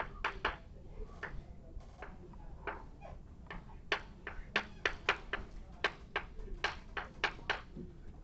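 Chalk writing on a blackboard: an irregular run of quick, sharp chalk taps and short strokes as a formula is written out.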